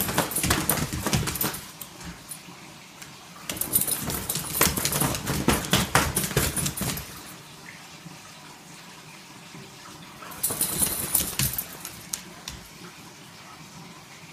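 A dog thrashing a stuffed toy on a hardwood floor: dense scrabbling of claws and paws with collar tags jingling, in three spells separated by quieter pauses.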